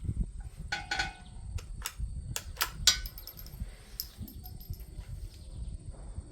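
A run of sharp metallic clicks and clanks, some with a brief ringing ding, the loudest about three seconds in. This is metal-on-metal handling of a Winchester Model 52 .22 rimfire target rifle at the bench.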